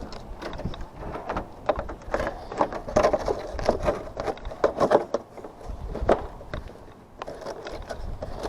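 Irregular scraping, clicking and knocking of parts being handled and fitted on an evaporative cooler.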